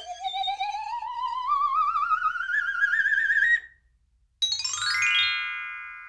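Cartoon sound effects: a warbling whistle-like tone that glides steadily upward for about four seconds and cuts off, then, after a short gap, a quick upward run of bright chime notes that ring on and slowly fade.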